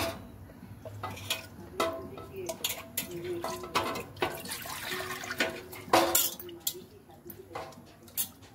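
A thick mutton marag paste of ground nuts and spices frying in oil in an aluminium pot, bubbling and spluttering with frequent small pops. This is the browning stage of the paste, before water is added.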